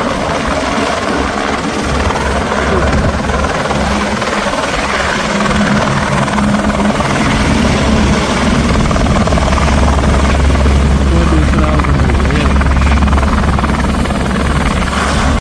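Helicopter rotor and engine running, a steady low throb that grows a little stronger in the second half.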